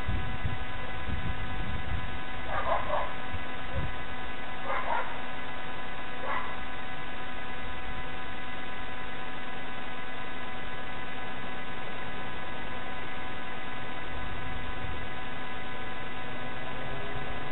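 Steady electrical hum with several fixed tones, and three short dog barks about three, five and six and a half seconds in.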